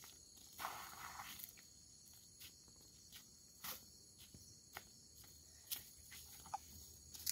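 Near silence with faint, scattered footsteps on a road and grass, heard as a dozen light clicks at uneven spacing.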